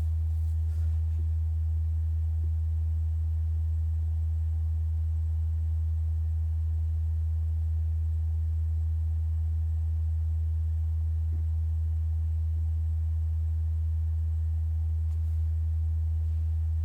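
A loud, steady low hum with a few faint ticks and nothing else of note.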